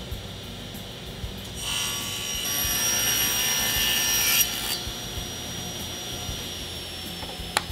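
Table saw cutting through a thin sheet of beadboard: over the saw's steady high whine, the blade cuts for about three seconds starting a second and a half in. Afterwards the whine slowly drops in pitch, and a single sharp knock sounds near the end.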